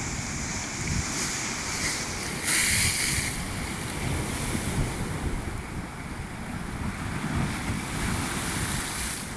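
Heavy sea surf breaking and washing ashore, with wind buffeting the microphone. A louder hiss of a breaking wave comes about two and a half seconds in.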